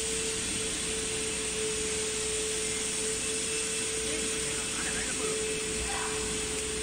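Plastic net extrusion machine running: a steady, even mechanical hiss with one constant mid-pitched tone over it.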